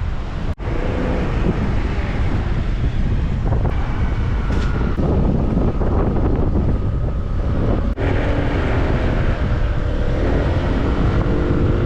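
Strong wind buffeting the microphone while on the move, with a vehicle running underneath. The sound breaks off briefly twice at cuts.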